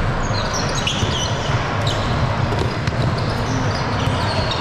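Basketball game in a gym: a ball bouncing on the court, short high squeaks of sneakers on the floor and a few sharp knocks over a steady crowd murmur and low hum.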